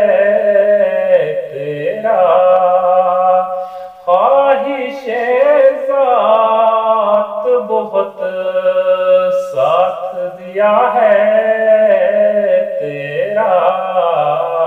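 A man reciting a naat, an Urdu devotional poem, in a chanted singing voice, drawing words out into long, wavering melodic phrases. There are three short breaths between phrases.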